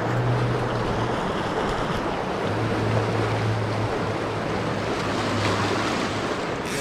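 Shallow mountain creek rushing steadily. A low hum is heard underneath in the first second and again through most of the second half.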